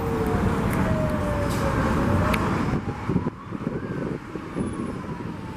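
Fire truck's faint, slow-wailing siren, one tone that falls, rises, then falls again, over loud truck engine and road rumble that eases about three seconds in.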